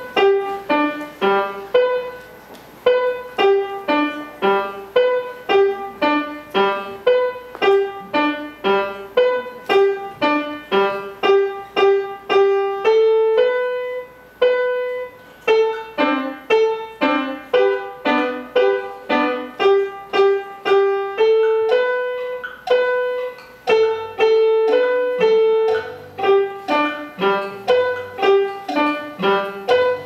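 Grand piano played solo: a melody of separate, evenly spaced notes, about two a second, mostly in the middle register, with a few longer held notes. Lower bass notes join about three-quarters of the way through.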